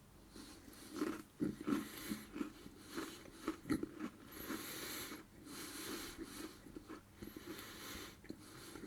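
Close-up chewing of a crunchy Maple Creme Oreo sandwich cookie: irregular crunches, with breaths through the nose between chews.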